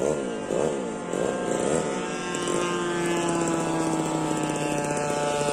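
Radio-controlled model warplane's motor and propeller running in flight. The pitch rises and falls several times in quick succession over the first two or three seconds, then holds steady.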